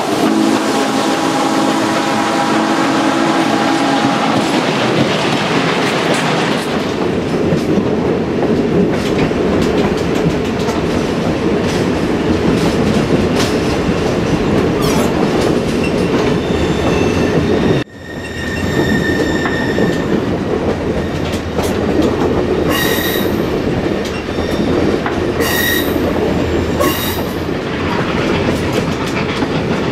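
Steam locomotive 734's whistle sounding a chord for the first few seconds, then the steady rumble of passenger cars rolling on the rails. In the second half, wheel clicks over rail joints and several short, high wheel squeals on curves.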